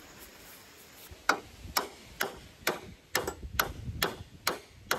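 A hammer striking the bent-in front of a lawn mower, about ten sharp knocks roughly two a second starting about a second in, each with a short metallic ring: knocking out a dent where the front had been pushed in.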